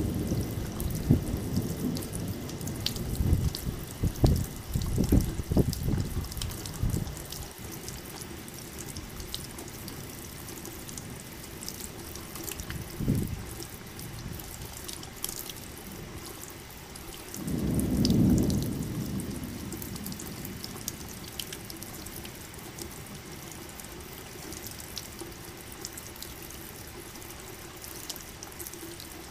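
Steady rain with scattered drips, and thunder: low rumbling through the first several seconds, a short clap about 13 seconds in, and another rumble that swells and fades around 18 seconds in.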